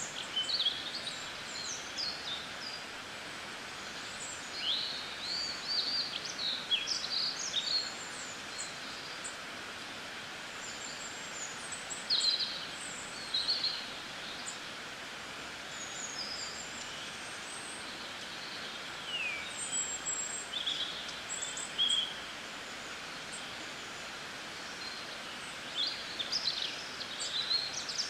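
Several small birds chirping in short, quick calls, in bursts that come and go, over a steady background hiss.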